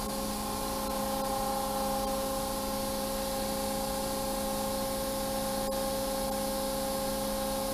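Steady machine hum from a CNC tube bender's hydraulic power unit running, several steady tones over an even hiss.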